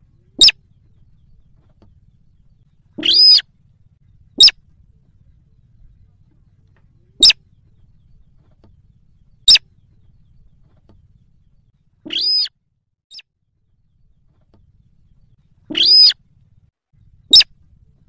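Slaty-breasted rail calling: single short, sharp, high notes spaced one to three seconds apart, with three longer notes among them, about eight calls in all.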